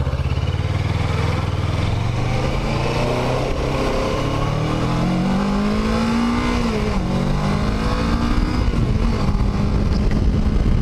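2006 Kawasaki Ninja 650R's parallel-twin engine accelerating away from a stop. Its pitch rises steadily for about six seconds, drops at an upshift around the seven-second mark, then climbs again.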